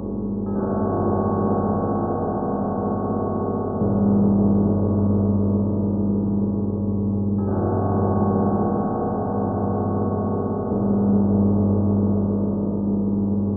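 Computer-modelled ringing of old Moscow Kremlin church bells, reconstructing the Kremlin peal described in 1678. Slow single strokes come about every three and a half seconds, alternating between a deeper bell and a higher-sounding one, and the long hum of each runs on into the next.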